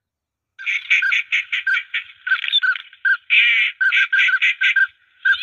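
Duck calls played through an electronic caller's loudspeaker as a lure: loud, quick runs of repeated calls, starting about half a second in and going on without a break in the rhythm.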